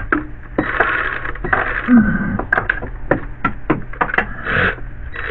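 Cordless power ratchet running in short bursts of whirring as it drives a small bolt, with sharp metallic clicks between the runs.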